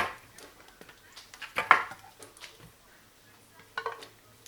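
Kitchenware clattering as cans of nearly frozen coconut milk are emptied into a mixing bowl: a few sharp knocks, the loudest with a short ring about a second and a half in, and a smaller clack near the end.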